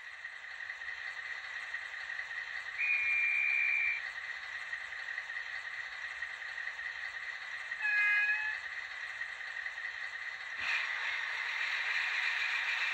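Sound decoder of a Fleischmann N gauge DR BR 112 (V100) diesel model playing engine idle through its small speaker. Two short signal tones come in: one lasting about a second, about three seconds in, and a shorter one at about eight seconds. Near eleven seconds there is a click, and the engine sound rises and stays louder as the locomotive gets ready to pull away.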